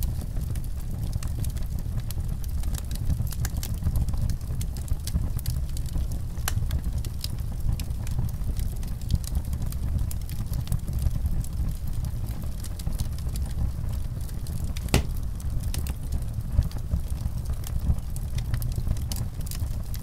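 Fire burning: a steady low rumble with scattered crackles and pops, one sharper pop about fifteen seconds in.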